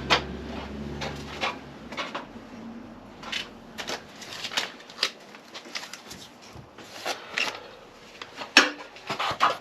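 Irregular light clicks and knocks of hands working at a water heater's fittings, with a low hum that stops about two seconds in.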